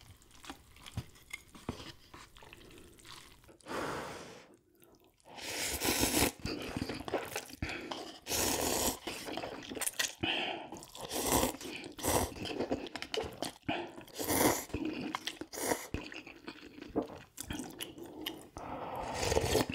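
Close-miked eating and food-handling sounds: faint small clicks and scrapes of setting out the ramen, kimbap and utensils for the first few seconds, then from about five seconds in, loud repeated bursts of chewing and crunching.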